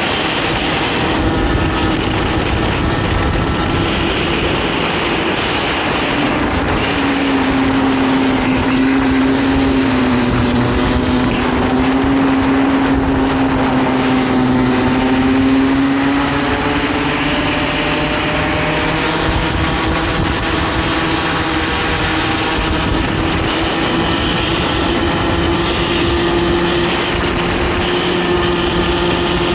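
Comer 50cc two-stroke kart engine running at racing revs, heard from on board over wind and tyre noise. Its note drops lower for several seconds through the corners about a quarter of the way in, then climbs steadily back up as the kart accelerates.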